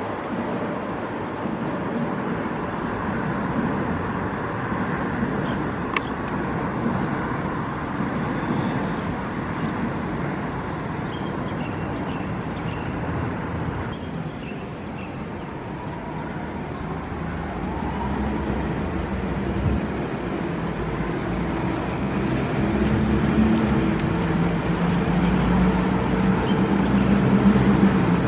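An elevated MRT train running past on the viaduct, a steady rushing rumble of the train on its rails. After that, a Bukit Panjang LRT rubber-tyred people-mover car approaching on its concrete guideway, a low steady hum that grows louder toward the end.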